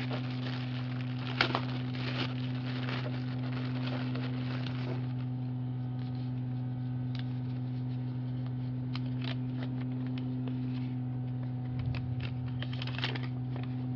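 Plastic packaging crinkling and rustling in gloved hands as the small clips for new brake pads are unwrapped, over a steady low electrical hum. The rustling eases after about five seconds, leaving scattered light clicks and paper handling near the end.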